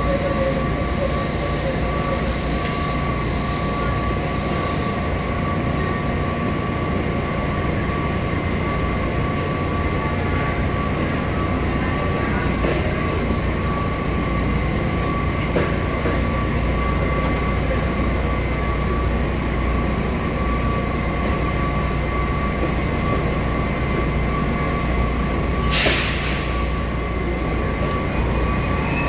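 WMATA 3000-series metro train standing at an underground platform, its onboard equipment giving a steady whine over the low rumble of the station. A short hiss of air sounds near the end.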